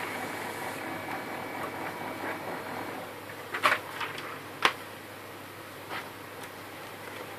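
HP LaserJet 1300 laser printer running through a print, its motor and gear train whirring steadily, going quieter about three seconds in. Several sharp clicks follow, the loudest a little after the hum drops.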